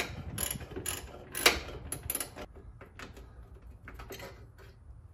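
Hand ratchet clicking in short runs with sharp metal clinks as bolts on the truck's front frame are unscrewed. The loudest clink comes about one and a half seconds in, and the clicking stops near the end.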